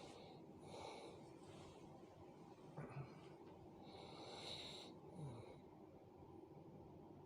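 A person snoring faintly in sleep: slow breaths with a hissing rush of air about a second in and again around four to five seconds, and brief low-pitched sounds between them.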